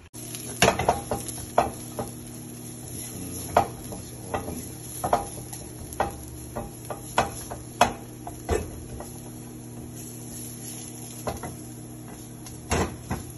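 A cooking utensil clacking and scraping against a pan in irregular strokes, over a steady sizzle, as boneless chicken feet stir-fry in a little oil.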